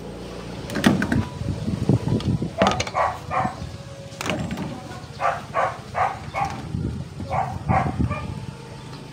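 Red PVC electrical conduit being cut and handled: sharp clicks and knocks with some dull thumps. Behind them, an animal gives short calls in quick runs of three to five, a third of a second apart.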